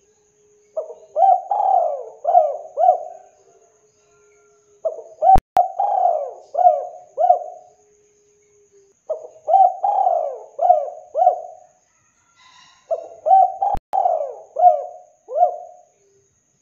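Spotted dove (tekukur) cooing: four song phrases about four seconds apart, each a quick run of four or five coos. Two short sharp clicks fall in the second and fourth phrases.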